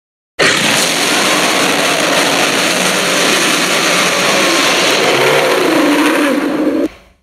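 One long monster-dinosaur roar sound effect for the fictional creature Arkosaurus. It starts suddenly about half a second in, holds loud and steady for about six seconds, and fades out near the end.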